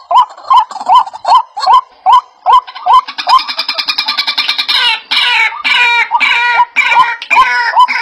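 A bird calling loudly and insistently. About two or three sharp rising notes a second give way, after about three seconds, to a fast rattling trill, then to a jumble of harsher mixed calls.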